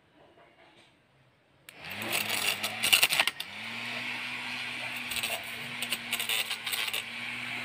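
Small electric motor of a homemade hand-held grass cutter switching on about two seconds in, spinning up with a rising whine and then running with a steady hum. Its blade clatters and chops against leaves and stems. Just after three seconds in, it briefly drops out and spins up again.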